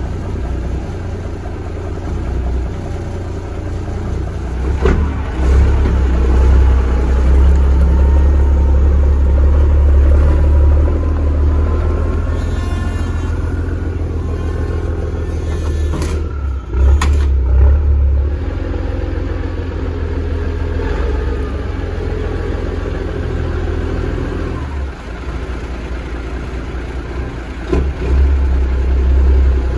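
Peterbilt semi tractor's diesel engine running and pulling away, louder for several seconds about five seconds in and again near the end, with a few sharp knocks.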